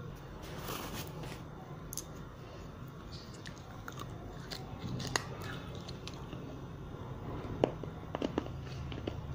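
Biting and crunching pieces of baked clay from broken diyas (earthen lamps), with sharp cracks scattered throughout and a cluster of them near the end.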